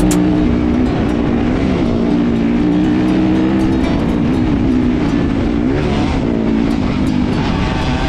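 Yamaha dirt bike engine running at a steady cruising pace, heard from on the bike, under a steady rush of riding noise. Its pitch dips and climbs back a couple of times around the middle as the throttle eases and opens again.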